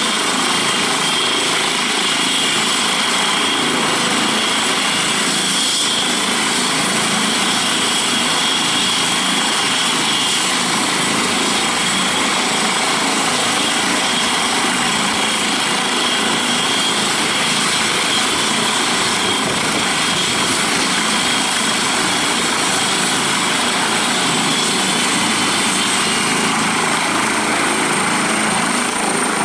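Eurocopter EC135 rescue helicopter running on the ground with its rotor turning: steady turbine whine over rotor noise. Near the end a high whine starts to climb as it powers up for takeoff.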